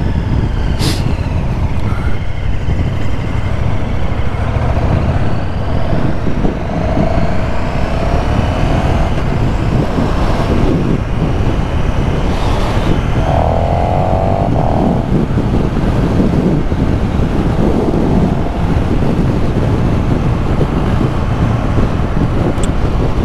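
KTM 1290 Super Duke R Evo's V-twin engine running under way on the road, its pitch rising and falling a few times with throttle and gear changes, with a steady road and wind rumble; the bike is in its street riding mode, in which the motor is quite subdued.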